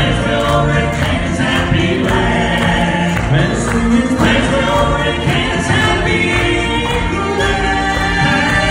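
Three men singing a gospel song in close harmony into handheld microphones, amplified through the church's sound system.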